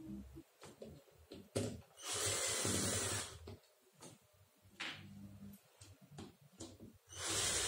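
Cordless drill-driver running in two short bursts, about two seconds in and again near the end, backing out the screws on a stand fan's motor plate. Light clicks and handling knocks fall between the bursts.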